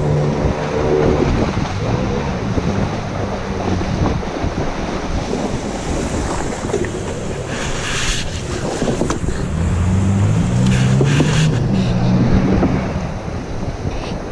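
River water rushing and splashing along the hull of a wooden longboat moving up a shallow stream, with wind noise on the microphone. Louder short splashes come about eight and eleven seconds in.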